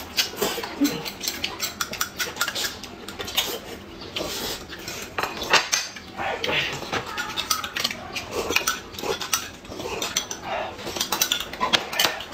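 Eating at a table: metal spoons and chopsticks clink and tap against plates and glass mugs, over and over. Between them come slurps of noodles and of a milky oat drink.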